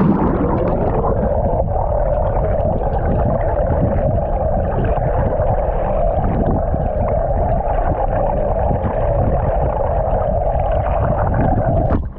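A boat's running outboard motors and propellers heard underwater: a steady drone with rushing water, muffled with no high sounds, cutting off suddenly at the end.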